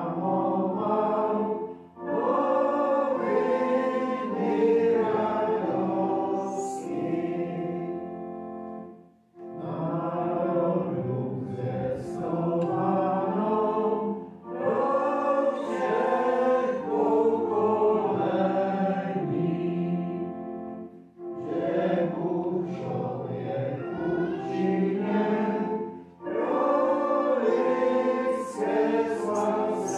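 Congregation singing a hymn together, phrase by phrase, with short breaks for breath between the lines.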